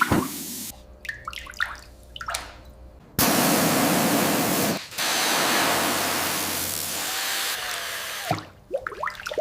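Long bursts of hissing spray, the longest running about five seconds with a short break in the middle. Between the bursts come small clicks and scrapes of parts being handled.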